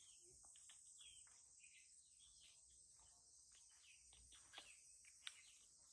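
Near silence with a steady, faint, high-pitched insect drone, scattered faint chirps, and two small clicks in the second half.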